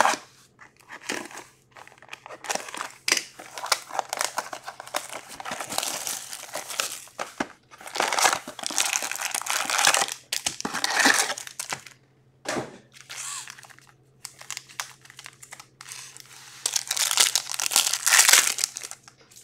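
Foil trading-card pack wrappers and box packaging crinkling and tearing in irregular bursts as a card box is opened and packs are ripped open, with a sharp click about two-thirds of the way in.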